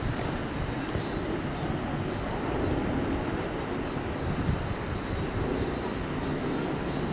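Boeing RC-135W reconnaissance jet landing, its four turbofan engines making a steady rushing noise.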